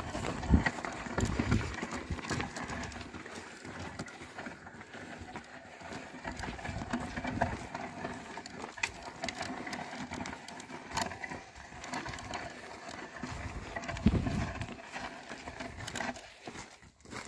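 Oxen stepping and pulling a plough through a field: irregular clopping and scuffing of hooves and soil, with a few heavier thumps near the start and near the end.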